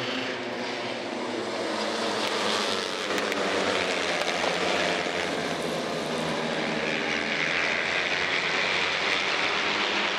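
A pack of J-GP3 class racing motorcycles at full throttle, many small engines running at high revs together in one dense drone that grows slightly louder a couple of seconds in.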